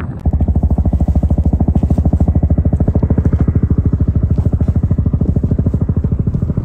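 Helicopter flying overhead: its rotor blades make a loud, fast, even beat that starts abruptly.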